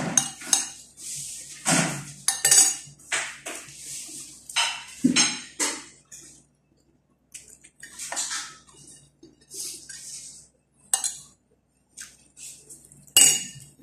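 Metal spoon and fork scraping and clinking against a paper plate as food is mixed and scooped up, in irregular strokes. They come thickly for the first six seconds, then more sparsely, with one sharp clink near the end.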